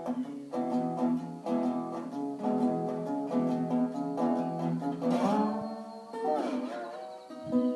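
Tricone resonator guitar playing a run of picked notes, with a few notes sliding in pitch midway through.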